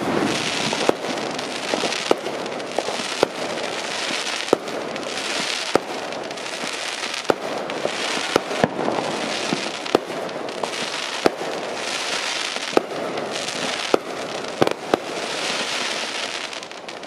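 Consumer aerial fireworks going off in quick succession: sharp bangs about every second, with stretches of crackling from the bursting stars in between.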